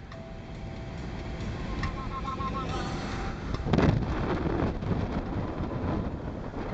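Low steady rumble of a car driving, with wind buffeting the microphone; a louder rush of noise about four seconds in.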